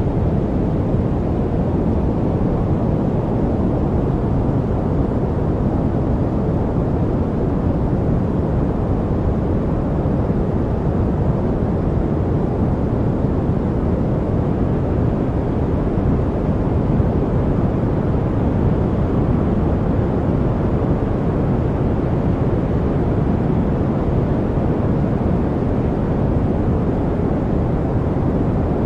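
Steady white-noise track, a deep even hiss with its weight in the low range, unchanging throughout.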